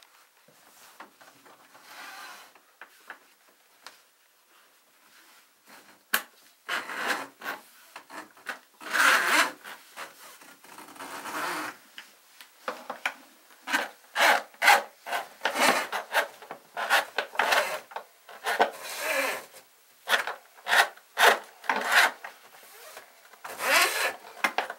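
Metal drain-snake cable being pulled out of a sink drain through a rag in a gloved hand: a run of short, quick rubbing and scraping strokes that starts a few seconds in, faint before that.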